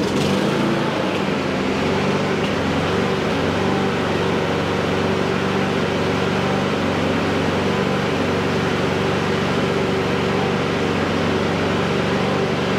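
Champion RV150 petrol lawnmower engine running steadily at a constant speed just after an easy pull-start.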